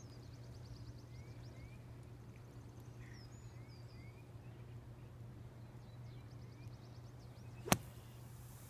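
A golf bunker shot: one sharp strike of the club head splashing through the sand under the ball near the end. Small birds chirp and trill throughout.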